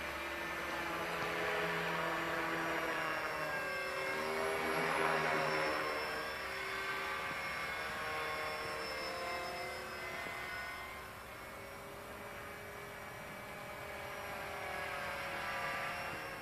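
Blade 450 X electric RC helicopter in flight: its brushless motor and spinning main rotor give a whine of several tones that slowly bend up and down in pitch. It is loudest about five seconds in and swells again near the end.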